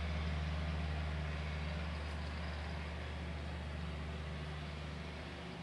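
Steady low hum with a faint hiss over it, easing slightly towards the end; no sound of the brush work is picked out.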